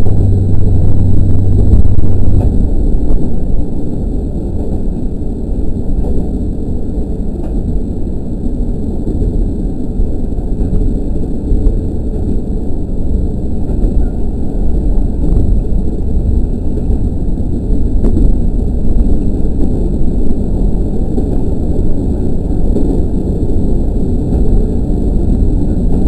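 KiHa 40 diesel railcar heard from its cab while running along the track: a steady low engine hum for the first two and a half seconds stops, leaving a continuous low rumble of the car on the rails with a few faint clicks.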